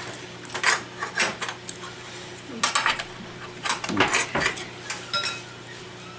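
Irregular metallic clinks and clicks of small parts and tools handled on the bare steel chassis of a flat-panel TV, over a faint steady hum.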